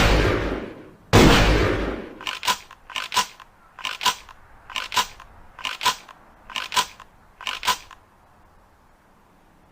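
Ithaca Model 37 pump-action shotgun: the tail of one shot fading out, then a second shot about a second in. Seven sharp metallic double clicks follow, a little under one a second, as the action is worked or shells are handled.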